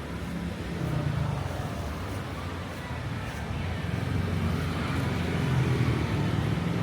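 Road traffic: vehicle engines running close by as they pass, a low rumble that grows louder toward the end.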